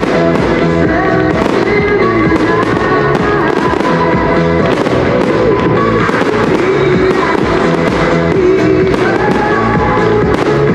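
Fireworks display: aerial shells and bursts going off again and again in quick succession, over music playing loudly.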